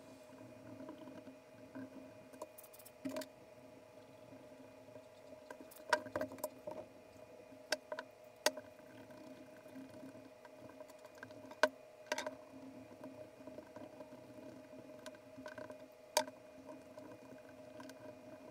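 Small metal camera parts, a Hasselblad 2000FC mechanism plate and gear wheel, being handled and cleaned with a cotton swab: soft rubbing and scattered sharp clicks and taps, a dozen or so, the loudest about six and twelve seconds in, over a faint steady hum.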